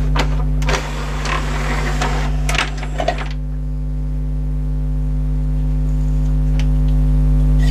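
Clicking and rattling of a Kenwood XD351 mini hi-fi's CD carousel tray as it is pushed shut by hand, over a steady low hum. After about three seconds the clatter stops, and the hum, with a faint higher whine, carries on and slowly grows louder.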